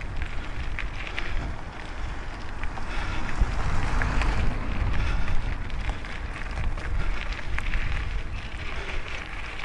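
Wind buffeting the microphone of a camera on a moving Calibre Bossnut mountain bike, with tyre noise and scattered small clicks and rattles from the bike rolling over a gravel and tarmac track.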